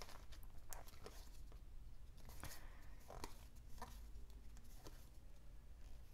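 Faint, irregular small clicks and rustles of trading cards being handled and thumbed through one after another, over a low steady hum.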